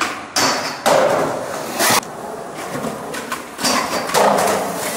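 Skateboard on concrete: hard board impacts and landings with the wheels rolling, in several loud bursts that start and stop abruptly.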